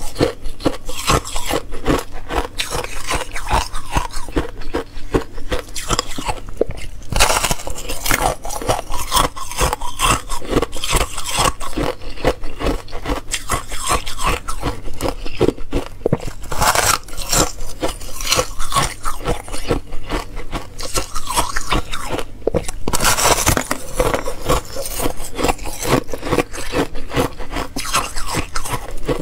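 Thin sheet of ice being bitten and chewed: a dense, continuous crackling crunch of ice breaking between the teeth, with a few louder crunches from bigger bites.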